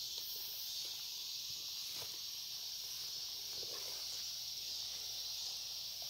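A steady chorus of insects, crickets or similar, a continuous high-pitched hiss, with a faint rustle or two of movement through the grass.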